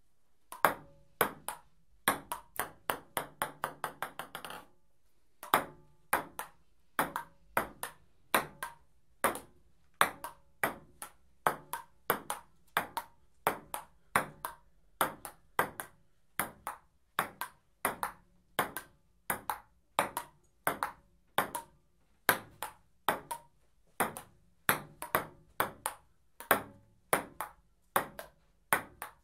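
Table tennis ball clicking sharply. First a ball bounces faster and faster and quieter until it comes to rest on the table. Then a steady rally follows, with ball strikes on paddles and table about twice a second.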